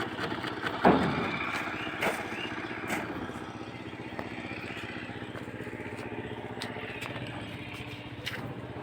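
An engine running steadily, with a few sharp knocks in the first three seconds.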